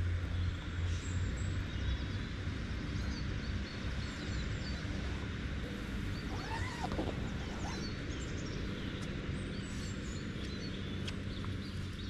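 Birds singing and calling: many short, high chirps throughout, with one lower call that falls in pitch about six and a half seconds in, over a steady low rumble.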